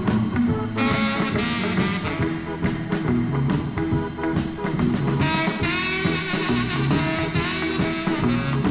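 Instrumental rock and roll record: tenor saxophone, electric lead guitar, Hammond chord organ, bass guitar and drums playing together, with a bright melody line coming in about a second in and again about five seconds in.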